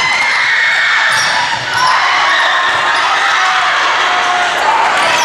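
Indoor volleyball rally: the ball is hit on digs and a set, amid players' and spectators' voices, echoing in a large gym.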